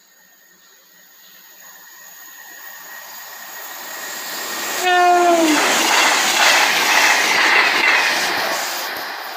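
Class 221 Voyager diesel train approaching at speed and sounding its horn once, about five seconds in; the note drops in pitch as the train passes. The loud noise of the train going by follows and fades near the end.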